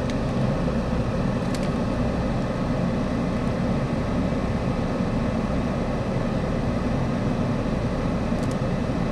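Steady hum of a stationary car idling, heard from inside the cabin.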